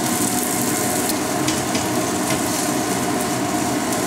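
Char siu (Chinese barbecue pork) sizzling steadily in oil in a hot pan as its fat renders out, with a few light clicks as a plastic spatula turns the pieces.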